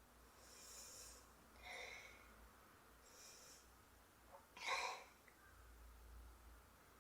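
A woman's breathy sniffs and catching breaths, the build-up to a sneeze, with a short, sharper burst of breath about five seconds in.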